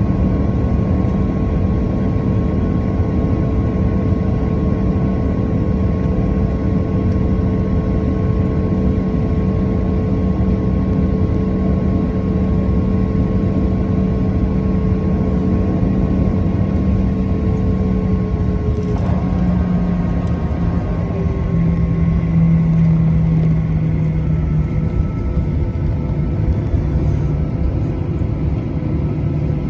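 Jet airliner cabin noise during taxi: a steady engine rumble with a few steady hum tones, which drop slightly in pitch about two-thirds of the way in.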